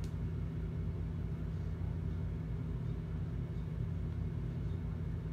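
A steady low hum with a faint regular flutter, and no other sound standing out.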